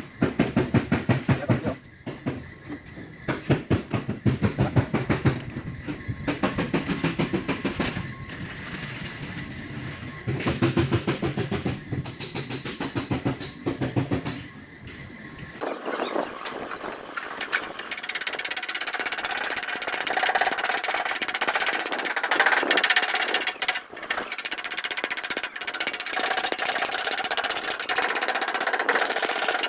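A power tool hammering in rapid pulses, in bursts of a second or two. About halfway through it gives way to a higher-pitched, steadier tool noise.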